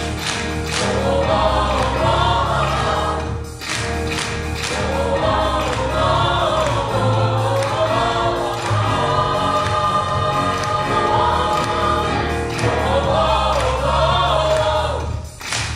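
Mixed gospel choir of women and men singing in full voice, over an accompaniment with a steady bass line underneath.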